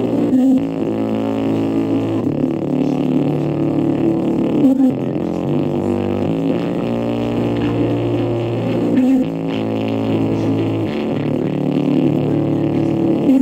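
JBL GO 2 portable speaker playing bass-heavy music with its EQ maxed out, distorting from being overdriven. A bass line of held notes steps up and down, the pattern repeating about every four and a half seconds.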